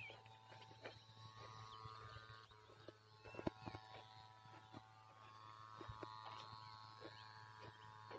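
Near silence: faint outdoor field ambience with a low steady hum, scattered light clicks and a few brief faint chirps.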